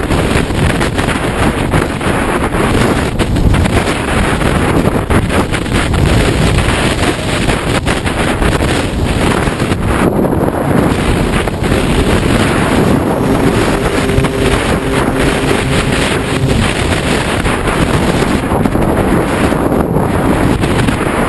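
Wind and rushing air buffeting the on-board GoPro microphone of a Radian Pro RC glider flying in high winds: a loud, steady rushing noise. A faint steady hum comes in for a few seconds in the middle.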